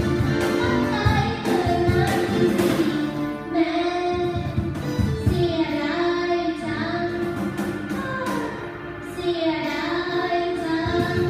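A live band plays a song with a singer carrying the melody over drums and held keyboard chords.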